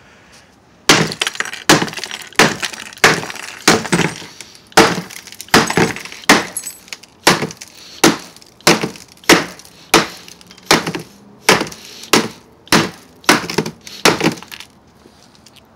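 An iPhone 5c being smashed with a hand tool: about twenty sharp blows, roughly one every two-thirds of a second, each with a crack of breaking glass and metal.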